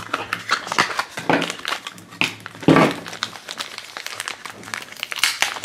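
Blind-bag toy packaging being opened by hand: a crinkly green foil packet crackling and rustling as it is pulled apart, with a louder crinkle about two and a half seconds in.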